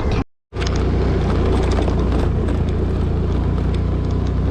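Motor scooter engine running steadily under way, with wind and road noise on the microphone. The sound cuts out completely for a moment about a quarter second in.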